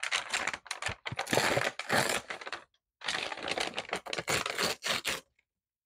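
Brown paper bag being torn along a steel ruler and crinkling in the hands: crackly ripping in two stretches of about two seconds each, with a short break about three seconds in. The tear comes out ragged rather than clean.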